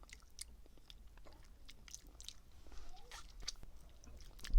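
Close-up chewing of strawberry mochi, with many small mouth clicks. A low thump comes near the end.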